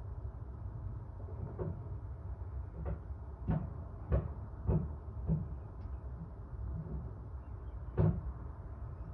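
Series of short, dull knocks over a low steady rumble: six knocks about every half second, then a pause and one louder knock near the end.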